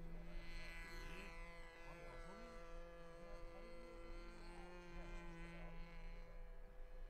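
Gasoline engine of a radio-controlled model airplane flying at a distance: a faint, steady buzz.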